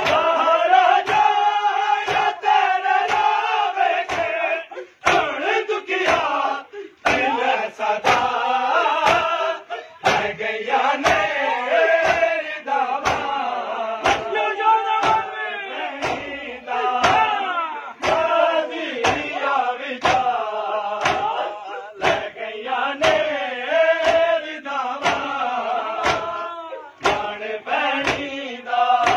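Men's voices chanting a Muharram noha while a crowd beats their chests in unison (matam), the slaps landing on a steady beat about twice a second.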